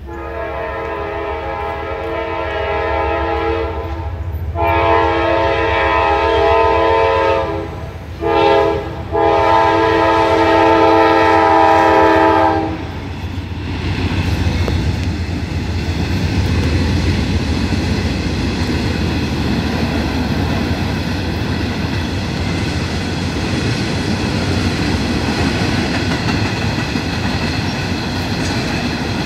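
Norfolk Southern freight locomotive horn sounding the grade-crossing signal: two long blasts, a short one and a final long one, ending about 13 seconds in. Then the locomotives and empty steel cars roll past with a steady rumble.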